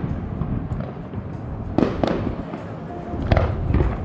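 Fireworks going off: four sharp bangs, a close pair about two seconds in and another pair near the end, each fading out in a rumbling echo.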